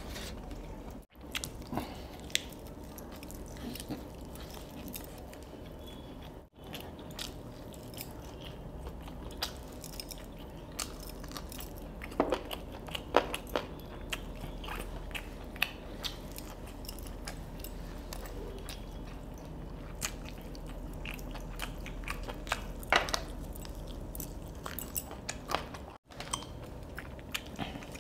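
Close-up chewing and crunching of crispy fried chicken, with scattered sharp crunches as it is bitten and chewed.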